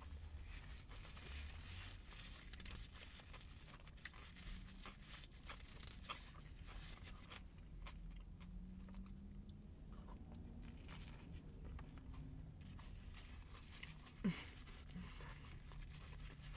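Chewing a sandwich with shredded lettuce and soft bread: faint crunching and small wet mouth clicks over a low steady rumble. A short louder sound comes about fourteen seconds in.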